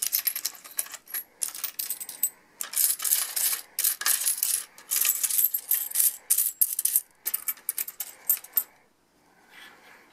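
Japanese yen coins clinking and jingling against one another in quick, irregular bursts as a hand rummages through and lifts them out of the bins of a homemade plastic-sheet coin sorter. The clinking stops about nine seconds in, leaving only a faint rustle.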